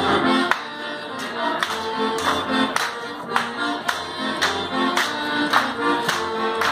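Traditional Bavarian dance music with sustained melody notes. Sharp percussive strikes from the Schuhplattler dancers land on the beat, about two a second.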